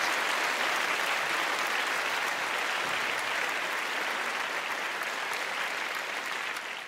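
Audience applauding, steady, fading away near the end.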